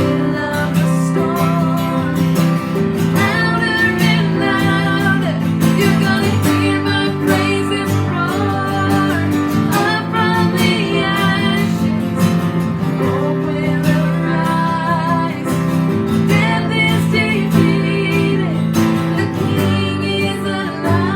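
Music: a song with strummed acoustic guitar and a singing voice with vibrato.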